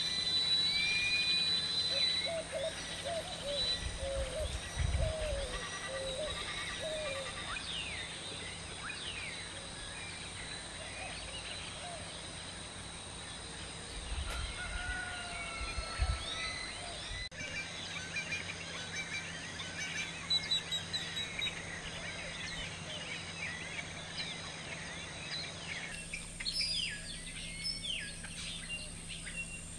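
Many wild birds chirping and calling, with a steady high background tone. A few low thumps come about five and about sixteen seconds in.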